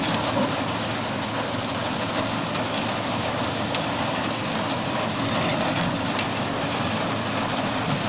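Tractor engine running with its PTO-driven Yapel DG 140 reaper-binder cutting through dry reeds: a steady mix of engine noise and the machine's cutting and the reed stalks being pushed through it, with a few faint sharp clicks.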